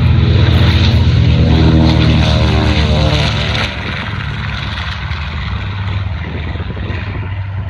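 North American B-25 Mitchell taking off at full power, its two Wright R-2600 radial engines giving a loud, deep propeller drone. The pitch slides down as the bomber passes, and the sound drops quieter about three and a half seconds in as it climbs away.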